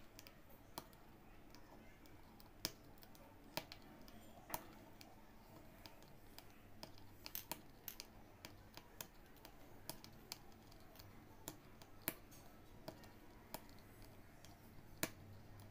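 Aari hook needle punching in and out of fabric stretched taut on an embroidery frame while filling stitches are worked: faint, irregular sharp clicks, about one or two a second.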